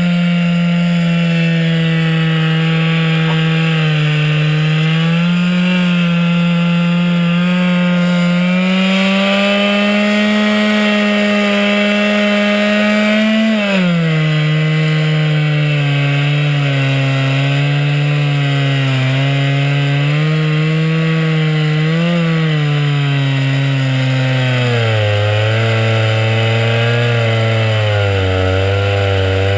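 Two-stroke chainsaw running under load, ripping a slab lengthwise from a blue spruce log. Its engine note wavers and sags as the cut loads it, dropping lowest near the end before picking back up.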